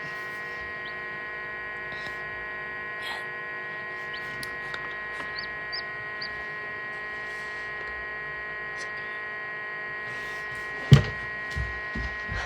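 Steady electrical hum of an egg incubator running, with a few faint, short, high chick peeps in the first half and a single thump about eleven seconds in.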